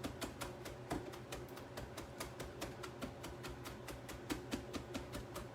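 Whole jalapeño roasting in a pan, crackling with many small, quick pops as its skin expands.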